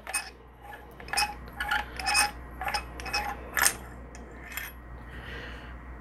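Screw-together metal handle sections of a survival axe being unscrewed by hand: a string of small metallic clicks and clinks, some with a short ring, as the pieces knock together.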